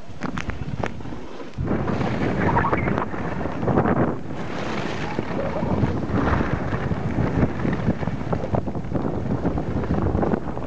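Wind buffeting the camera's microphone in a loud, uneven rumble, getting louder about a second and a half in.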